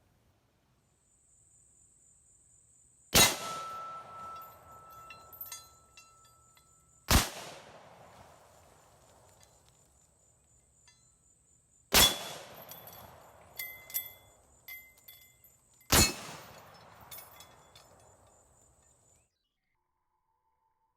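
Bolt-action Remington M1903 rifle in .30-06 firing four single shots about four seconds apart, each with a short echo. Smaller clicks and clinks follow each shot as the bolt is worked.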